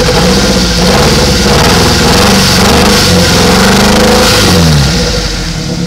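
Nissan Sentra four-cylinder engine revved up and held with the throttle blipped a few times, then dropping back to idle about five seconds in. Plugging in number 1 injector makes no change to how it runs, which the owner takes to mean that the injector is either getting no power or is bad.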